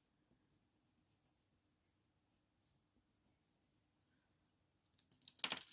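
Near silence, then about five seconds in, a few quick scratchy strokes of a white Faber-Castell Polychromos coloured pencil on hot-press watercolour paper.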